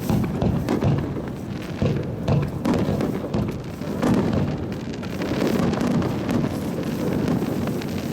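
Aerial fireworks going off in a dense barrage: overlapping booms and crackling bursts, one after another with no break.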